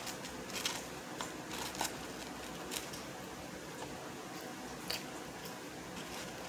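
Quiet eating sounds: a few short clicks and crackles from chewing and from fingers picking through a cardboard food box and dipping into a sauce cup, spaced irregularly over a steady low room hum.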